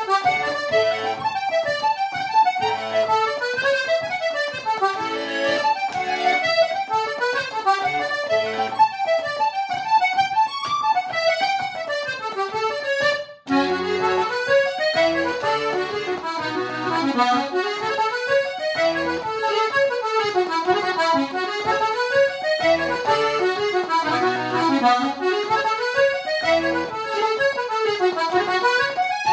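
Button accordion playing Irish jigs solo: a quick, continuous melody over bass-button chords, with a momentary break about thirteen seconds in.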